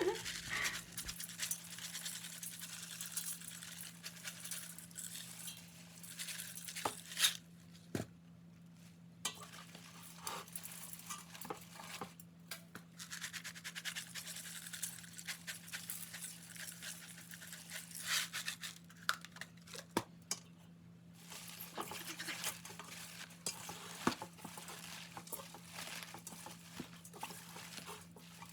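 Garlic mustard leaves being handled and squeezed with salt in a bowl: rustling and crinkling of the wet greens with scattered light knocks and clinks of the bowl, over a steady low hum.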